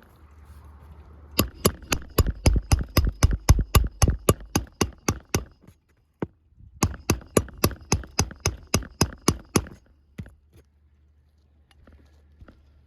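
A roofing hammer drives nails into asphalt shingles in two runs of quick blows, about five a second, each with a short metallic ring. The second run starts about a second after the first stops.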